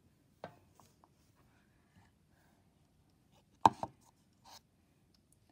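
Light handling clicks, then a plastic drinking cup knocking down onto a desktop with a sharp double knock about three and a half seconds in, followed by a brief soft rustle.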